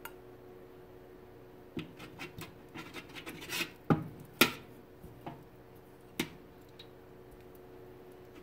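A metal spoon scraping and knocking against an enamelware roasting pan as stew is served: a run of short scrapes and clicks over a few seconds, with the two sharpest knocks near the middle and one more a little later.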